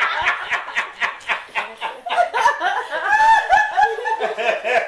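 Laughter right after the punchline of a joke: quick rapid ha-ha pulses at first, then longer voiced laughs about two seconds in.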